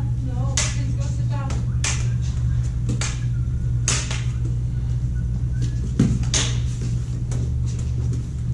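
Combat lightsabers dueling: a steady low electronic hum from the sabers' sound boards, broken by about half a dozen sharp clash sounds as the blades strike each other.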